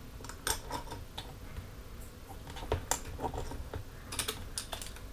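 Irregular clicks and taps of 3D-printed plastic clock parts being handled and fitted together. There are small clusters of clicks about half a second in, around three seconds in, and just after four seconds.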